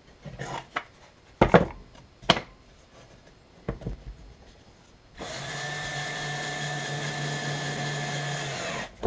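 Cordless drill/driver running at a steady pitch for about three seconds, driving a screw into the soft wood of a birdhouse kit, then stopping abruptly. A few sharp knocks and clicks come before it starts.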